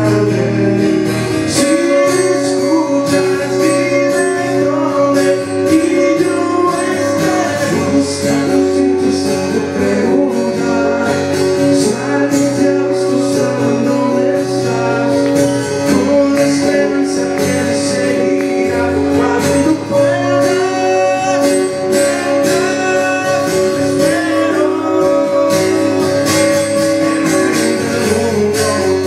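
Live acoustic performance: a strummed acoustic guitar and an electric guitar playing together, with a man singing.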